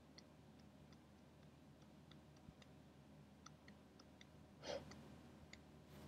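Near silence: faint room tone with a dozen or so tiny, scattered clicks and one soft breath near the end.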